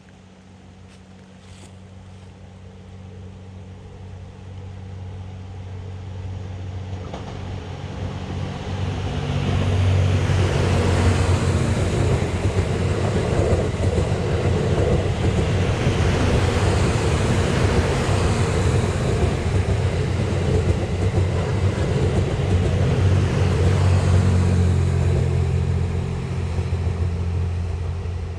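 Twilight Express Mizukaze luxury sightseeing train approaching and passing close by: a rising rumble of wheels on rails with a steady low hum, loud for most of the pass, then fading as the train clears near the end.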